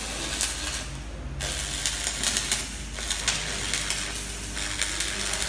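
Electric arc welding on the steel plates of a tugboat hull: the arc crackles and spits irregularly, over a steady low hum.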